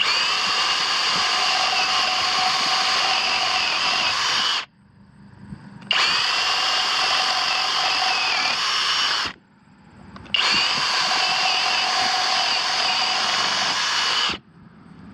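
Kobalt 24V cordless SDS Plus rotary hammer spinning a 1-inch spade bit, running in three bursts of about four, three and four seconds, each starting and stopping abruptly with a steady motor pitch.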